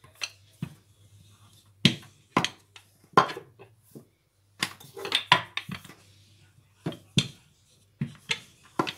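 Wooden rolling pin knocking and clattering on a wooden counter while thin dough is rolled out and handled: a dozen or so sharp irregular knocks with short pauses between.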